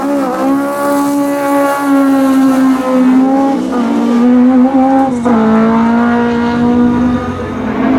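Rally car engine running hard at high revs, its pitch held high with a brief dip about midway and a sudden drop a little past halfway, then climbing slowly again.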